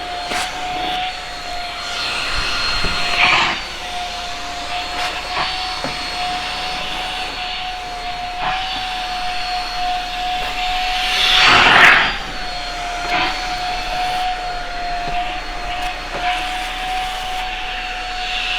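Shark Rocket stick vacuum running steadily with a constant motor whine. It gets louder twice: briefly about three seconds in, and for a longer swell near twelve seconds.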